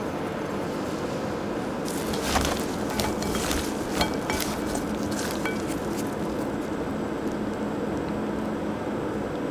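Gloved hands tossing julienned radish strips with sugar in a glass bowl: a run of crisp clicks and rustles from about two to six seconds in as the strips knock against each other and the glass, over a steady low hum.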